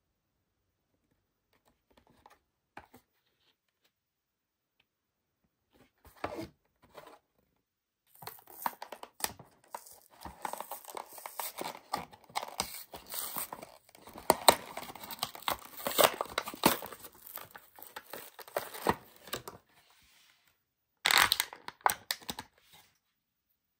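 A toy's blister pack being opened by hand: the card backing is torn and peeled away from the clear plastic shell, which crinkles and crackles. A few short rustles come first, then a long stretch of tearing and crackling, and one last brief crinkle of plastic near the end.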